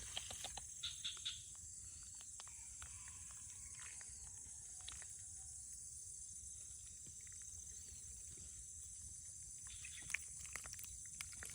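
Steady high-pitched chirring of an insect chorus, with scattered faint clicks and rustles: a quick cluster at the start and another near the end.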